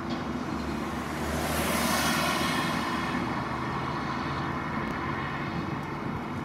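Diesel engines of Volvo demolition excavators running steadily. About a second and a half in, a louder rushing swell rises and fades over about two seconds.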